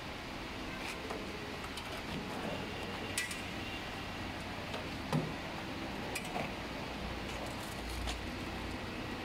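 A few light clicks and knocks from hands handling a balancing machine's fittings and controls, over a steady workshop background hum; a low rumble rises briefly near the end.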